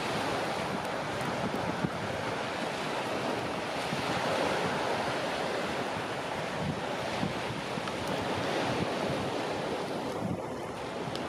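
Steady rushing noise of sea surf and wind on the microphone, with a few faint clicks.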